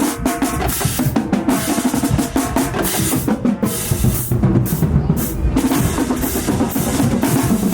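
Marching band drumline playing a fast, dense cadence on snare and bass drums, with rolls.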